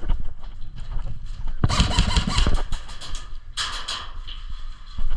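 Airsoft guns firing in rapid strings of sharp cracks about two seconds in, over low wind and handling rumble on the microphone.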